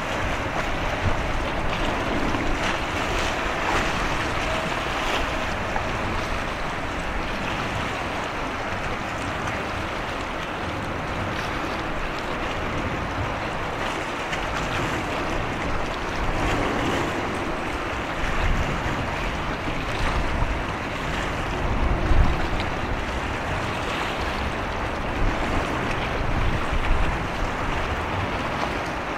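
Steady rushing noise of wind and sea water, with wind gusts buffeting the microphone now and then in the second half, the strongest about three-quarters of the way through.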